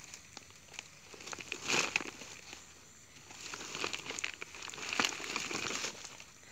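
Rustling and crinkling in two spells: a short one about two seconds in, and a longer one from about three and a half to six seconds, with a few sharp clicks.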